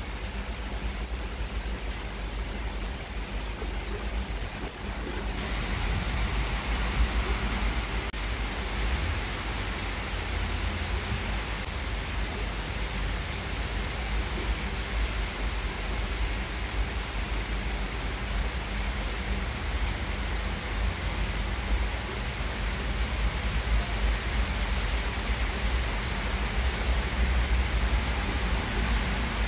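Heavy rain falling steadily, an even hiss that grows heavier about five seconds in, with a low rumble underneath.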